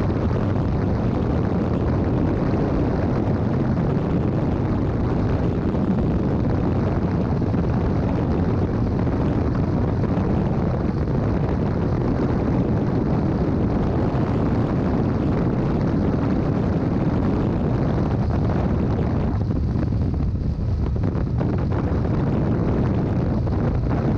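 Steady wind noise over the microphone of a motorcycle cruising at road speed, mixed with low engine and road noise. The higher hiss eases briefly near the end.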